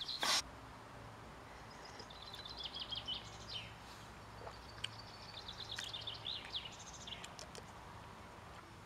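Small songbirds singing in quick, high twittering phrases, in two bouts about two and five seconds in, over a faint outdoor hush. A brief loud noise comes right at the start.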